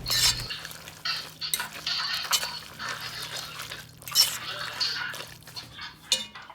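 A utensil scrapes and clinks against a pan as pasta is stirred and tossed through a wet, creamy egg-and-Parmesan sauce, in irregular strokes.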